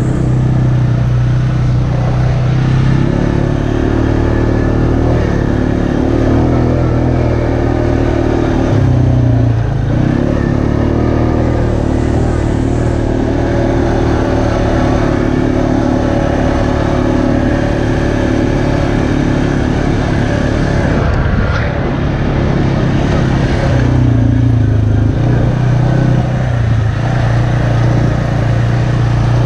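ATV engine running steadily as the quad rides along a dirt trail, its note dipping briefly about nine seconds in and again near the end.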